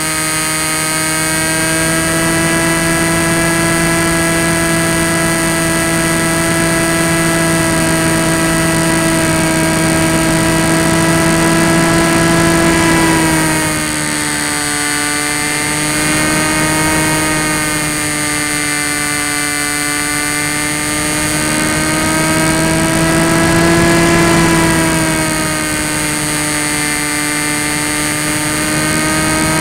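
Electric motor and propeller of a Tek Sumo foam flying wing running in flight, heard from a camera on the wing: a steady whine over rushing wind. The pitch drops about halfway through and rises briefly again near the end as the throttle changes.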